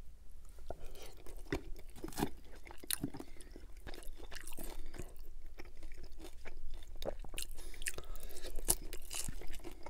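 Close-miked chewing of gravy-soaked poutine fries and cheese curds: wet, irregular mouth clicks and smacks.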